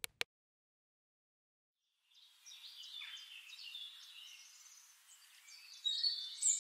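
Two brief clicks, then faint forest ambience of birds chirping fades in about two seconds in, many short overlapping chirps and glides, a little louder near the end.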